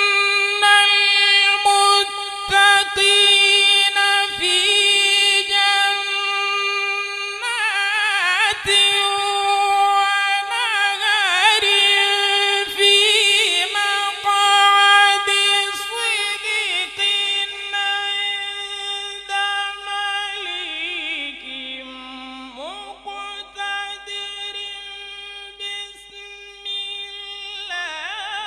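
A man's high, melodic Quran recitation (tajweed), sung in long held notes and wavering ornamented runs, dipping lower about three-quarters through before rising again near the end.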